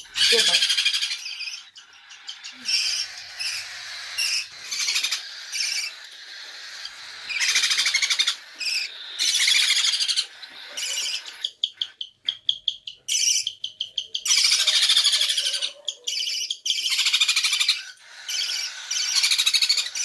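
Parrot chicks giving high-pitched begging calls while being hand-fed, in repeated bursts, with a quick stuttering run of short calls about halfway through.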